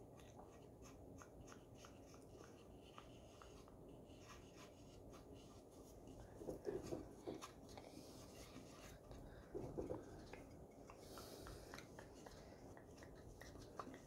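Near silence with faint rubbing and small ticks of paintbrushes working on a wooden birdhouse. Two brief, soft low sounds come about six and a half and ten seconds in.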